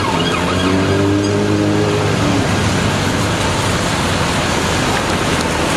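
London street traffic: an emergency vehicle's siren wail trails off at the start. A low steady hum, like a heavy engine, lasts about two seconds, then gives way to a steady rush of traffic noise.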